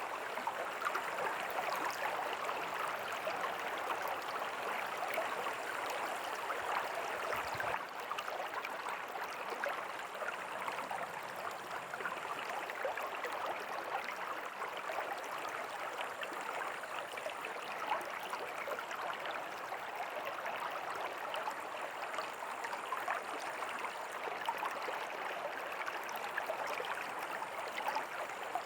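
River water flowing steadily, an even rush of moving water with fine bubbling.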